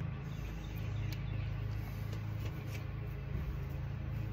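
Lawnmower engine running steadily in the background, a low even hum, with a few faint ticks over it.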